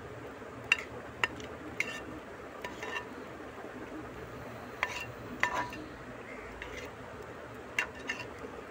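A perforated metal ladle stirring thick duck curry in a large pan, knocking and scraping against the pan with about ten sharp clinks at uneven intervals, over a steady hiss.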